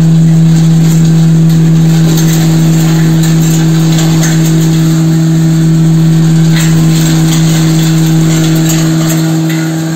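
A 15 HP turmeric grinding machine running with a loud, steady hum while dried turmeric fingers are fed by hand into its hopper, with scattered crackling from the hard roots being ground into powder.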